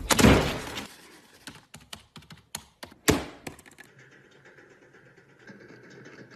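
Irregular clicks and knocks, with two louder thumps, one at the start and one about three seconds in, then a faint, even background.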